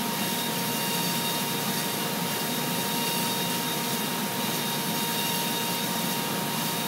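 Willemin Macodel W408B five-axis mill finish-milling stainless steel with a small ball-nose end mill, spindle at 28,000 RPM under flood coolant. The result is a steady high spindle whine with several fixed tones over the hiss of coolant spray and cutting.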